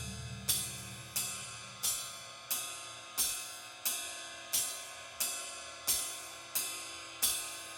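Background music: cymbal or hi-hat strokes about every two-thirds of a second, each ringing out, over sustained instrument notes.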